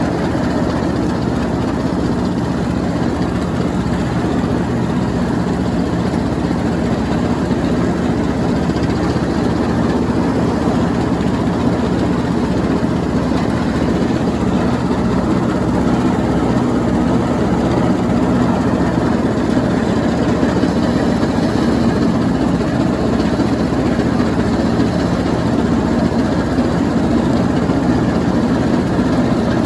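Troy-Bilt Bronco riding lawn mower running steadily while it mows and shreds leaves, its engine and deck blades making one even, continuous drone.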